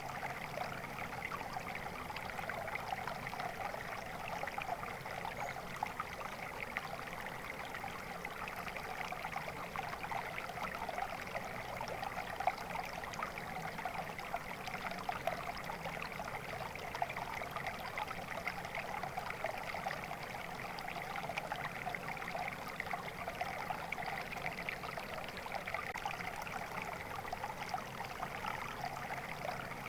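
Water flowing steadily in a stream, a continuous babbling and trickling that stays even throughout.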